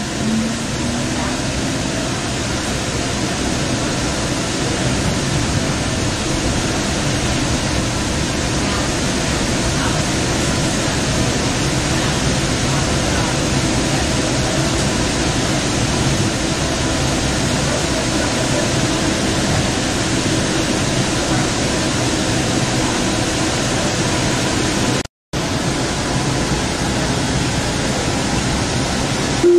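Steady rumble and hiss of a Sound Transit Link light rail car running, heard from inside the car, with a faint low motor hum. The sound cuts out for an instant near the end.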